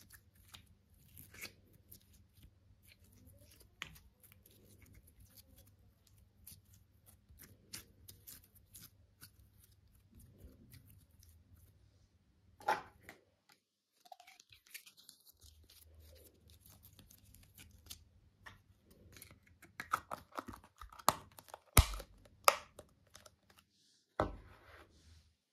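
Slime being squeezed, stretched and pulled apart, with soft crackling and small clicks throughout, a louder snap about halfway and a run of sharper, louder snaps near the end.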